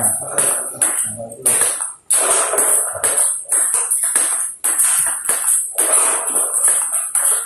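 Table tennis forehand rally: the ball clicks off rubber paddles and bounces on the table, a sharp tick two or three times a second, over a steady high hiss.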